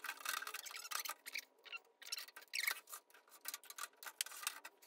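Scattered small clicks, taps and rubbing as hands handle a grow-light bar inside a glass-and-metal display cabinet.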